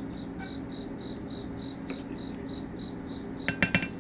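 A metal spoon clinks against a dish four times in quick succession near the end. Underneath runs a faint, high chirping pulse, about three a second.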